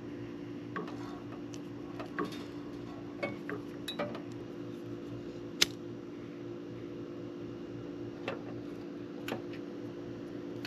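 Small, scattered metallic clicks and taps of pliers working the bubbled-out edge of a crimped battery cable terminal, with one sharper click about five and a half seconds in. A steady low hum runs underneath.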